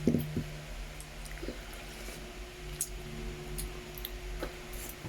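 Eating sounds: faint chewing and mouth noises with a few soft clicks, and a short thump just after the start, over a steady low hum.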